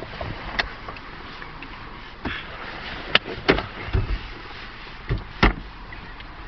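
A steady low hum inside a car, broken by a handful of short sharp knocks and rustles, the loudest two about three and a half and five and a half seconds in.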